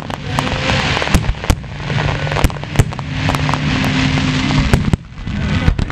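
Aerial fireworks bursting: a rapid, irregular string of sharp bangs over a continuous crackling hiss, easing briefly about five seconds in before picking up again.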